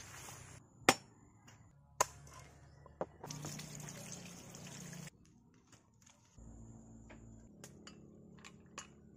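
Water pouring in streams onto snail shells and leaves in a metal colander, a steady rush lasting about two seconds near the middle. Before it come a few sharp clicks, about one a second, and after it a quieter low steady sound with light ticks.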